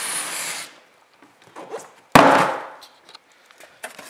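A cardboard box holding a floor jack and jack stands being opened by hand: a rushing scrape of cardboard for the first half-second or so, then one loud thud about two seconds in, followed by a few faint clicks.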